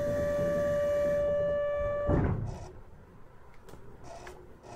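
Door-closing buzzer of a Kyoto Municipal Subway 20 series train, a steady buzzing tone that stops about two seconds in, ending in the thud of the sliding doors shutting. A few faint clicks follow.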